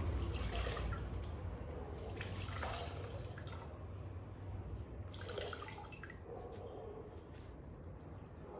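Water dripping and splashing in scattered drops from a wet cleaning cloth as it is wrung out and handled, getting quieter toward the end.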